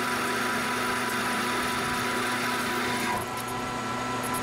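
Metal lathe taking a heavy dry cut in 1144 Stressproof steel with a carbide insert, 0.050 in deep at 0.022 in per revolution: a steady machine hum with a cutting hiss over it. About three seconds in the hiss drops away while the lathe keeps running.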